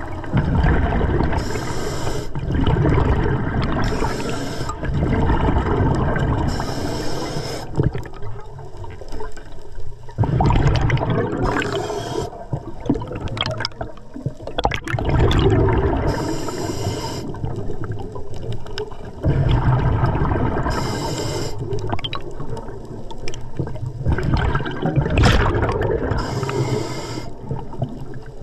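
Scuba diver breathing underwater through an Atomic regulator: a short hiss on each inhale, then a longer gurgling rush of exhaled bubbles, about one breath every five seconds.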